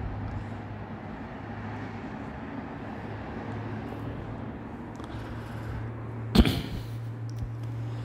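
Steady outdoor background noise with a low hum of distant traffic, then one sharp knock about six and a half seconds in.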